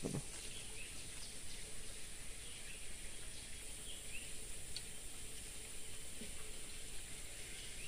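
Outdoor waterside ambience: a steady high insect drone with a few faint, scattered bird chirps.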